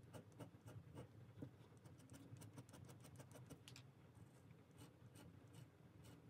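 Faint scratching of a stainless steel Kakimori dip nib on cold-pressed watercolour paper, drawing many quick short hatching strokes.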